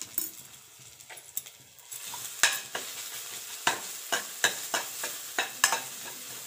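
Crushed garlic sizzling in hot oil in a wok, with a metal spoon scraping and knocking against the pan as it is stirred. The stirring picks up about two seconds in as a string of sharp clicks over the steady sizzle.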